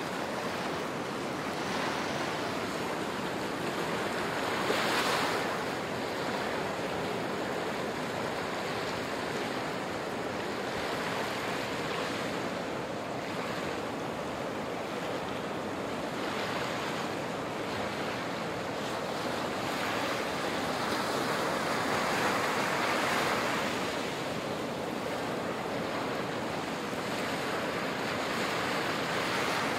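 Small waves washing up onto a sandy beach and drawing back: a steady surf wash that swells louder a few times as larger waves break, about five seconds in and again around two-thirds of the way through.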